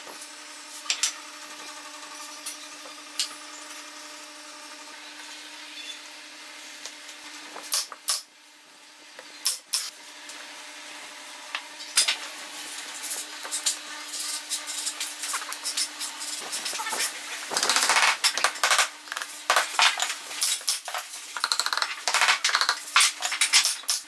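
Small wooden sticks knocking and clacking against each other and the bench as a stick-built log-cabin bird house is put together by hand, with some rubbing and shuffling of wood. The knocks are scattered at first and come thick and fast in the second half, over a steady low hum.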